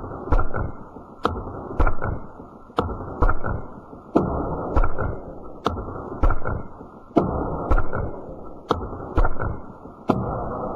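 A steady series of sharp knocks or chops, about two a second, each followed by a short muffled rush that dies away.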